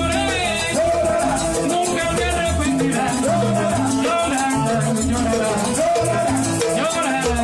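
Cuban salsa-style band music with bass notes, a bending melodic line and busy hand percussion keeping a steady rhythm.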